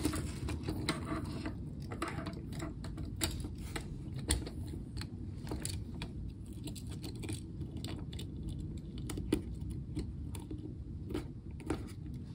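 Light, irregular clicks and rattles of a plastic Lego chain and Lego bricks being handled as the chain is hooked onto a model, over a steady low hum.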